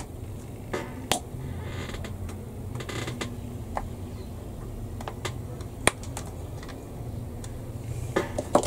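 Small plastic model-kit parts being handled and pressed into place on a plastic tank hull: scattered sharp clicks and taps, a few brief scrapes, and a cluster of clicks near the end, over a low steady hum.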